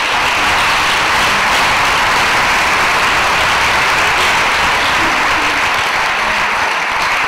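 Theatre audience applauding, a loud, steady clapping that begins to die away near the end.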